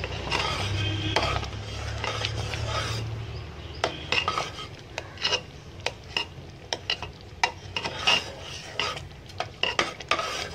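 Metal ladle stirring thick lentil-and-jaggery payasam in a pot, scraping and clicking against the pot's sides and bottom in irregular strokes about once or twice a second. A low hum underlies the first three seconds.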